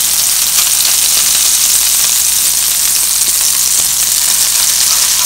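Minced-meat cutlets sizzling steadily in hot oil in a frying pan as a crust forms on the underside.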